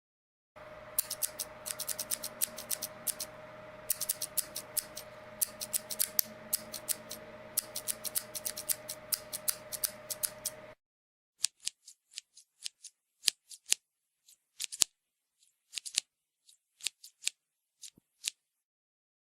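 A pair of scissors snipping in quick runs of sharp metal clicks over a steady hum. About eleven seconds in the hum stops, and the snips go on more slowly and one at a time.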